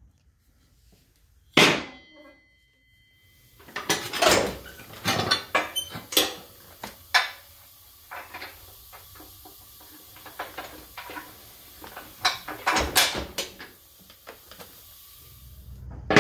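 Metal parts and tools clanking and knocking against a riding mower's deck as it is worked on by hand. There is one sharp clank about one and a half seconds in, then clusters of knocks in the middle and again near the end, with lighter clicks between.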